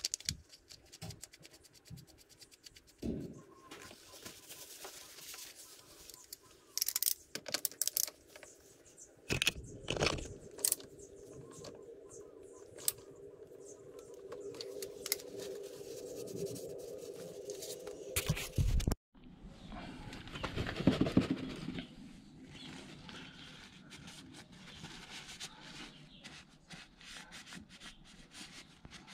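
Irregular scraping, clicking and knocking of hand tools and parts being handled, in scattered bursts with sharp knocks.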